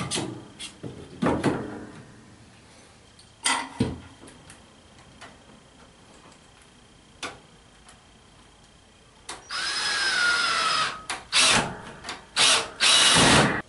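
Cordless drill driving thick deck screws through a wooden brace board into the ceiling framing. There are a few knocks as the board is set in place, then from about two-thirds of the way in the drill runs in one long stretch and several shorter bursts.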